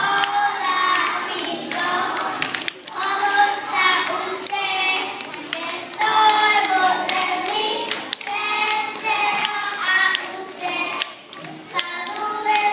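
A group of young children singing a song together in short phrases, with a few handclaps.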